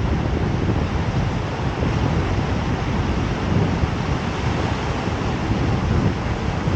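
Wind buffeting the microphone in gusts over a steady roar of ocean surf.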